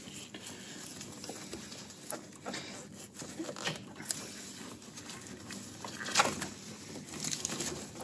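Scattered small clicks and rustles as a VW clutch cable is slid up and out of its mount by gloved hands, with a louder one about six seconds in.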